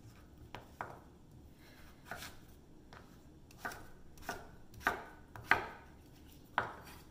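Kitchen knife chopping peeled taro root into cubes on a wooden cutting board, in about eight separate, unevenly spaced strokes, the loudest a little past halfway.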